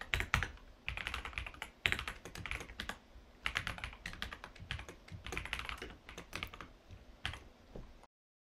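Typing on a computer keyboard: quick runs of keystroke clicks with short pauses between them. It cuts to dead silence near the end.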